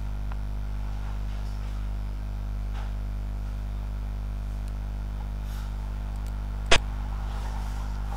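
Steady low electrical hum. About two-thirds of the way in comes one sharp click: the move sound of a xiangqi piece landing on its square.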